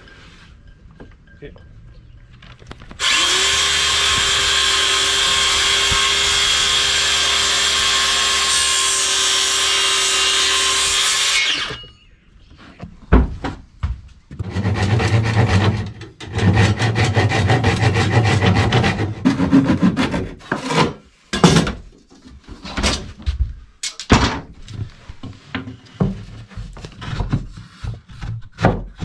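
Cordless drill drilling into wood. It starts about three seconds in, runs steadily with a whine that rises as it spins up, and stops about eight seconds later. It is followed by a run of irregular rubbing and knocking on wood.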